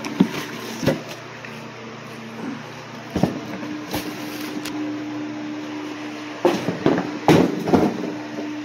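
Plastic wrapping crinkling and cardboard rustling and knocking as a 12-inch subwoofer is handled and lifted out of its shipping box. The crackles and knocks come in scattered bursts, busiest near the end, over a steady low hum.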